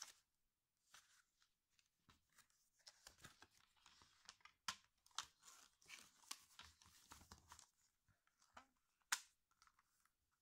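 Faint rustling and crackling of card-stock paper and a laminated cover as a paper insert is handled and slid into a travel notebook, with a single sharp click about nine seconds in.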